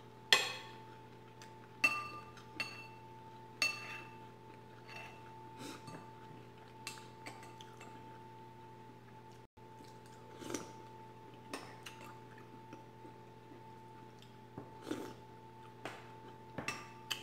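Metal spoon clinking and scraping against a ceramic soup bowl: a few sharp, ringing clinks in the first four seconds, then lighter taps and scrapes, over a faint steady hum.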